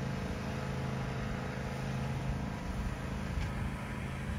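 Riding lawn mower's small engine running steadily as it drives along the street, a low hum that fades a little over the last couple of seconds.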